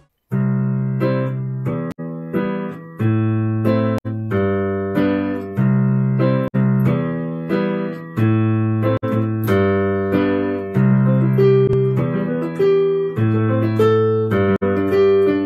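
Instrumental test recording played back through a noise-reduction plugin: a slow line of single pitched notes, each starting sharply and ringing on into the next, with its background noise removed.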